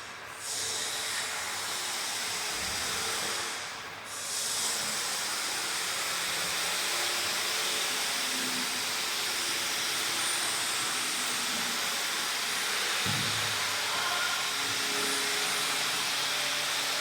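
Open-frame 30 kVA diesel generator set with a Ricardo K4100D engine running steadily, a dense hiss over a faint mechanical hum, dipping briefly about four seconds in.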